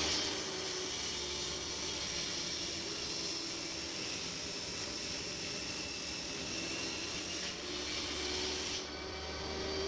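Table saw running and cutting through a board, the blade hissing steadily through the wood over the motor. Near the end the cutting noise drops away as the cut finishes and the saw runs on freely.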